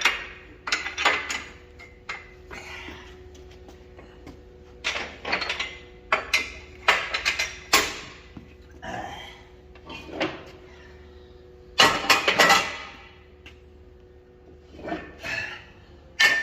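Irregular metal clanks, knocks and scrapes as steel axle parts and tools are handled on a workbench, loudest in a cluster of bangs about twelve seconds in, over a faint steady hum.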